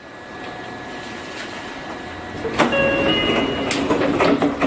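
Cab interior of a Seibu 30000 series electric train standing at a platform: a steady hum, then about two and a half seconds in a sharp click followed by clatter and a few short electronic beeps.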